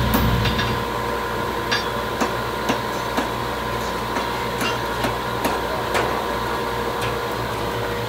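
Hammer blows on hot steel at the anvil, struck at an uneven pace of roughly two a second, over a steady hum.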